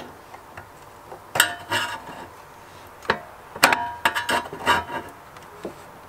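Screwdriver tip clicking and scraping against a ribbon cable connector and the surrounding case parts while prying the connector loose: a scattered series of short sharp clicks and brief scrapes.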